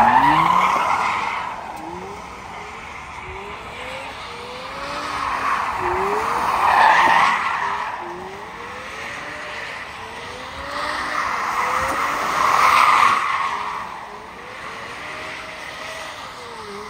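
A car drifting: the engine revs rise again and again while the tyres squeal. The squeal swells loudest at the start, about seven seconds in and about thirteen seconds in.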